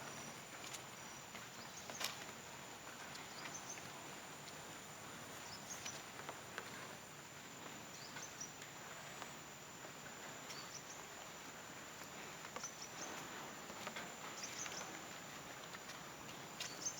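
Faint, steady, high-pitched insect drone, with scattered short chirps and a few light clicks, the sharpest about two seconds in.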